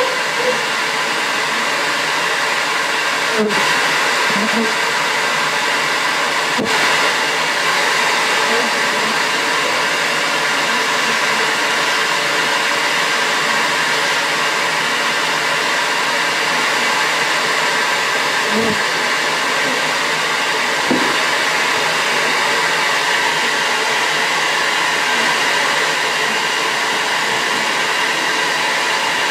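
Bee vacuum's motor running steadily, a continuous even whoosh of suction with no change in speed.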